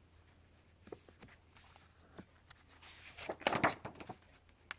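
Pages of a paperback coloring book being handled and turned: a few soft clicks, then a louder paper rustle about three and a half seconds in.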